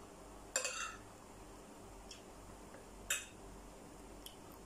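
Metal spoon clinking against a plate twice, about half a second in and again about three seconds in, each with a short ring, with a few small ticks of tableware between.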